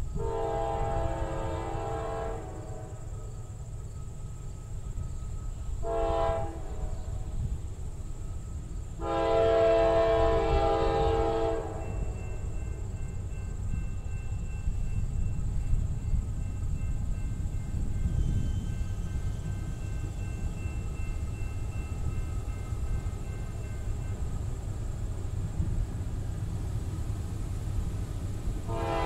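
A Norfolk Southern AC44C6M freight locomotive's multi-note air horn sounding in the distance as the train approaches: a long blast, a short one about six seconds in, and a long one about nine seconds in, with another blast starting near the end. A steady low rumble sits underneath.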